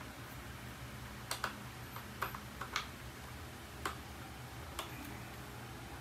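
Several sharp, irregular plastic clicks and taps as the side brushes are fitted onto the underside of a Deebot 661 robot vacuum. The brushes are keyed and snap into place.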